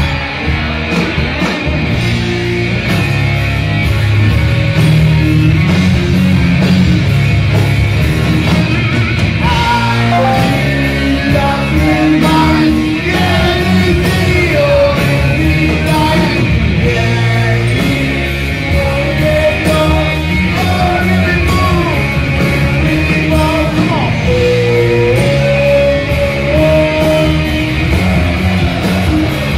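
Heavy rock music: a loud band with electric guitar, with a sung melody coming in about a third of the way through.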